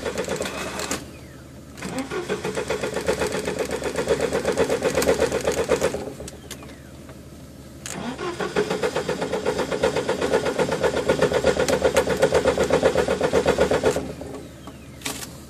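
An off-road 4x4's engine being cranked on the starter motor in three long tries, with a fast, even pulsing churn and short pauses between, never catching.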